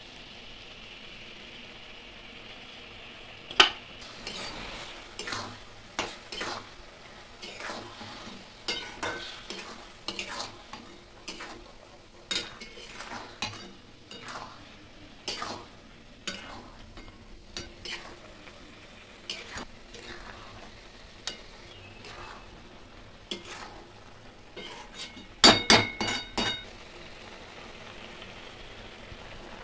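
Flat metal spatula scraping and knocking against a metal karai while grated coconut is stirred through sugar syrup, in irregular strokes over a faint steady sizzle of the cooking syrup. A quick run of louder knocks comes near the end.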